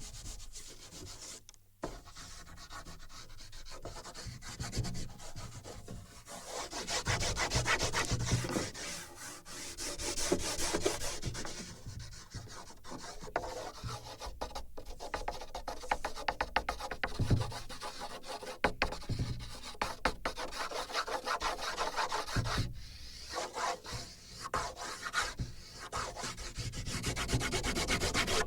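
A drawing tool scraping and rubbing across a sheet on a wooden board, picked up by sensors on the board. It comes in uneven swells that follow each stroke's pressure, with a few sharp ticks between them.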